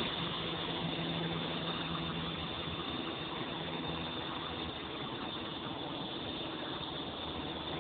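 Walkera V200D02 flybarless RC helicopter in flight: the steady whine of its electric motor and the hum of its rotor blades. The low hum fades over the first few seconds as the helicopter climbs away.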